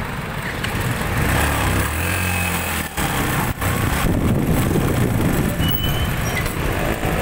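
Motorcycle engine running while the bike is ridden through city traffic, with road noise. The sound dips briefly twice about three seconds in.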